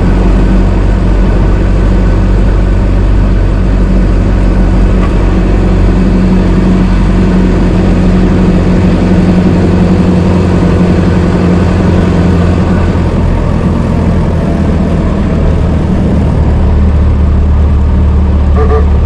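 An old car's engine running steadily, with a short higher-pitched tone just before the end.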